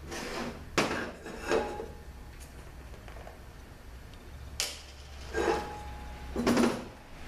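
Aluminium clutch drums from a 62TE automatic transmission clanking against each other and the steel workbench as they are handled and set down: a handful of sharp metal knocks in two clusters, a couple of them with a short metallic ring.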